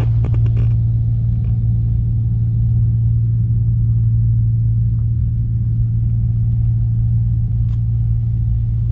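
A steady low hum over a rumble, like a motor running. There is a faint tick about five seconds in and another near the end.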